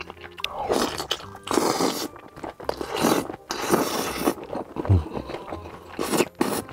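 Close-miked eating: a man slurping saucy noodles in several short, hissy sucking pulls, with chewing between them.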